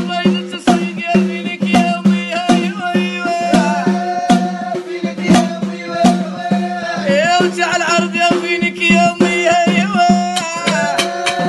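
A man singing an ornamented Arabic song in a wavering, melismatic line, accompanying himself on a small hand drum struck in a steady rhythm. A steady low drone runs underneath.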